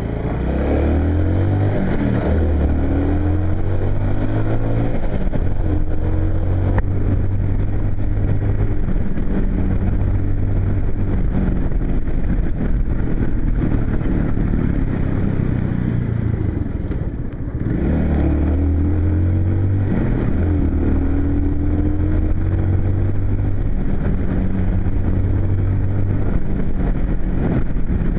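Motorcycle engine pulling away and accelerating, its pitch rising and stepping up through the gears, then running at a steady cruise. About 17 seconds in the throttle briefly closes and it accelerates again, rising in pitch through the gears, with wind rush throughout.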